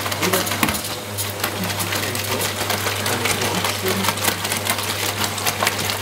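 Eudora Luftikus EU 455 S washer-dryer running: a steady motor hum under a fast, uneven rattle.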